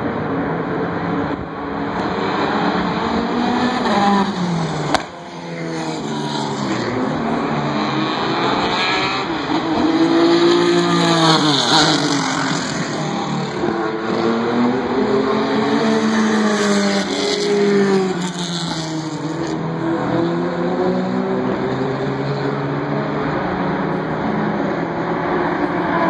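Vintage race cars' engines at speed on the track, several at once, their pitch climbing as they accelerate and sweeping down as they go past. There is a single sharp click about five seconds in.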